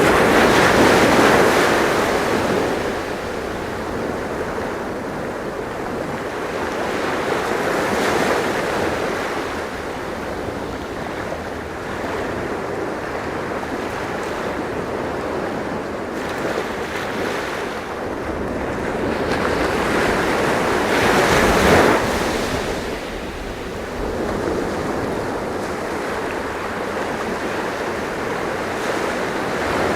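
Sea waves washing in: a continuous rushing surf that swells and fades slowly, with surges near the start, about eight seconds in, and the loudest about two-thirds of the way through.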